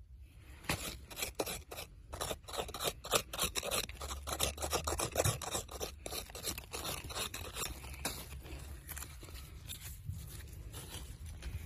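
Digging in dry soil: a quick, irregular run of gritty scrapes and crumbling dirt, thinning out near the end.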